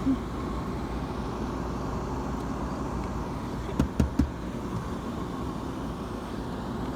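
Steady low rumble, like a running car, with three short knocks a little under four seconds in.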